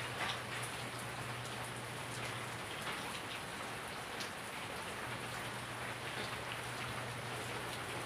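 Steady rain falling, with a few sharper individual drops about three and four seconds in. A faint low hum sounds underneath for the first few seconds and again from about five seconds on.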